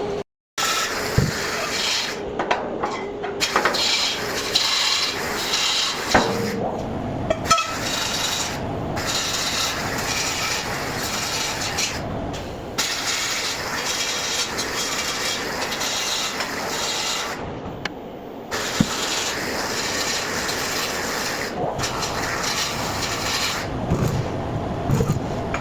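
MIG welder arc crackling and sizzling as beads are laid, stopping briefly several times between runs.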